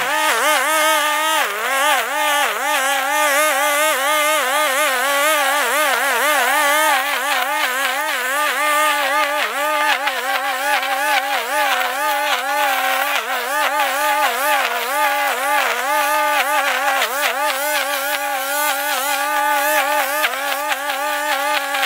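Stihl FS 91 R string trimmer running at high speed, its pitch wavering up and down continually as the line cuts through grass.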